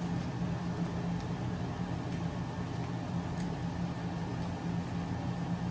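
Electric fan running with a steady hum and whir, with a faint click about three and a half seconds in.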